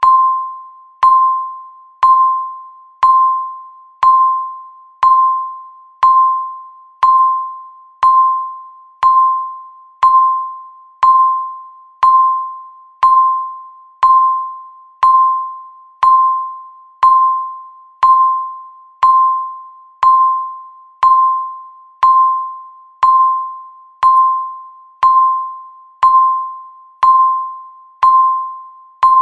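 Countdown timer beeping once a second: a single high pitched electronic ping with a sharp start that fades away before the next one.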